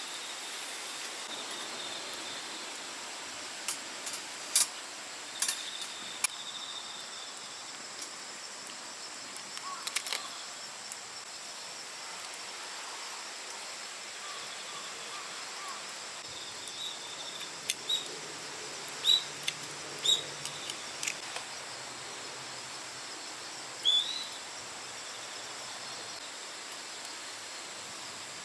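Outdoor ambience: a steady hiss broken by about ten sharp clicks and pops, with a few short high chirps, one rising near the end.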